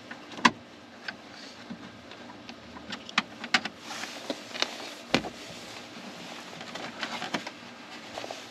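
Sharp clicks and knocks of hand tools and metal parts being handled, the loudest about half a second in and a cluster of them three to five seconds in.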